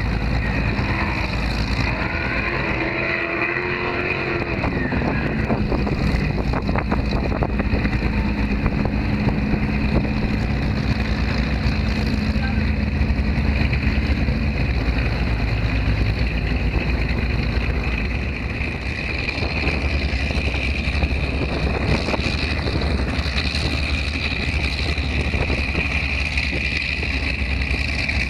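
Miss Geico offshore racing powerboat's engines running at speed. The engine note drops about four seconds in, then holds steady.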